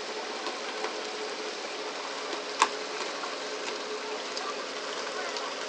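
Steady hiss of water spray and sea wash along the hull of a pole-and-line tuna boat, over a faint steady hum. Scattered light clicks run through it, with one sharp knock about two and a half seconds in.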